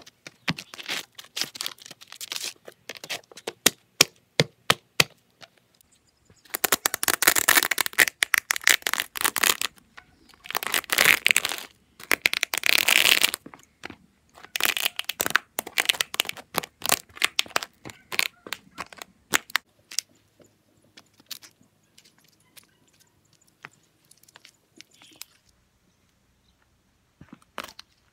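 Dry pasta crunching and snapping under trainer soles on concrete, in two long spells of dense crunching followed by scattered sharp snaps that thin out near the end.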